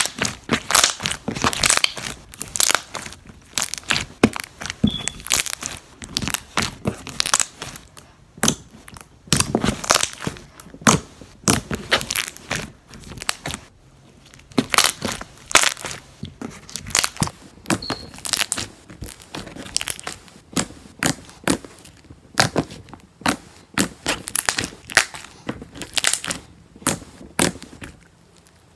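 Glossy white slime being stretched, folded and squeezed by hand, making a rapid, irregular run of sticky clicks and pops with a few brief pauses.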